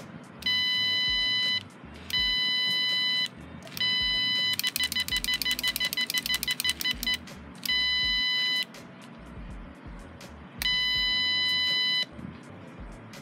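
Piezo buzzer of an Arduino water-level monitor sounding its low-water alarm: about one-second beeps repeated every couple of seconds, with a few seconds of fast pulsing about four seconds in. It signals that the float switch has dropped and the bowl needs a refill.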